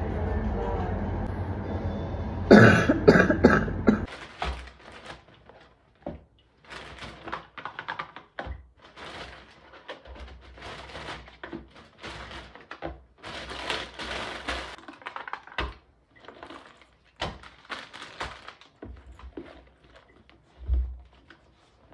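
A few hard coughs over a steady low rumble, about two and a half seconds in. The rumble stops suddenly at about four seconds, leaving scattered quiet taps and rustles of things being handled.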